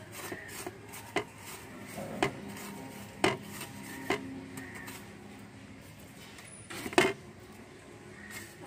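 Sharp metallic clinks on a stainless steel plate, five or so spread a second or more apart and the last one loudest, as a hand rubs spice powder onto a whole fish lying on it.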